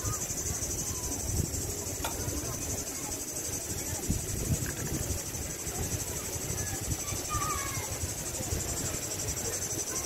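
Steady high-pitched chorus of insects, with a fine rapid pulse, over a low uneven rumble.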